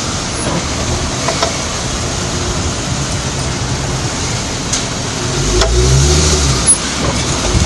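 Dodge Charger driving with steady road and drivetrain noise, a low rumble that swells about two-thirds of the way through, and a few faint, irregular clicks from the rear driveline. The clicking is the symptom that was traced to a defective rear differential unit and a leaking rear propeller-shaft joint.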